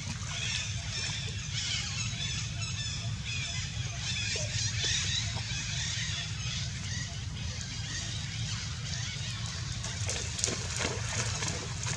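Outdoor pond ambience: many high chirping and squeaking animal calls over a steady low rumble, with a few brief splashes of macaques moving in the water near the end.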